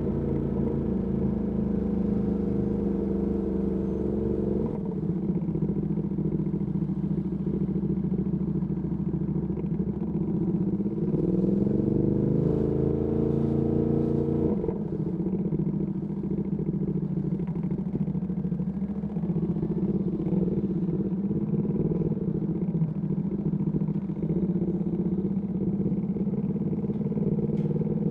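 Ducati Panigale V2S V-twin engine through a Termignoni exhaust, running steadily at low revs. About eleven seconds in, the revs climb for three seconds and then drop off suddenly near the middle.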